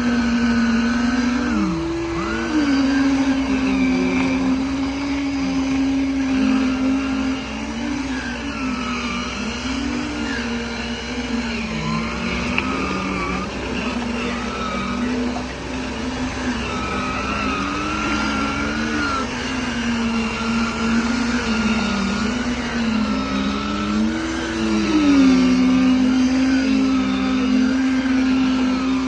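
Machinery engines running on a concrete pour, their speed rising and falling over and over.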